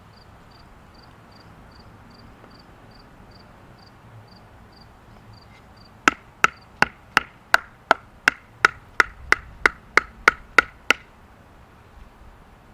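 About fifteen sharp, evenly paced knocks, nearly three a second, starting about six seconds in and lasting about five seconds: a wooden baton striking the spine of a serrated pocket knife to split a stick of firewood. Before that, faint insect chirping repeats steadily.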